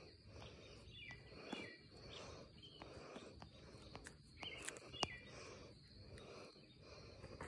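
Near silence: faint outdoor background noise, with a few soft chirps and light clicks.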